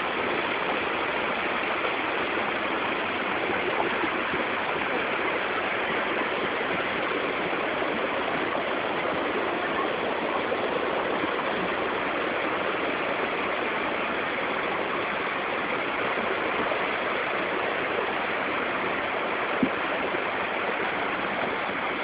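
Waterfall gushing steadily: an even, unbroken rush of falling water.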